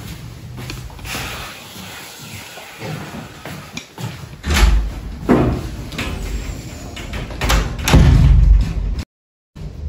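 Door shutting with a slam, amid several thuds and knocks from people moving about; the loudest thumps come near the end.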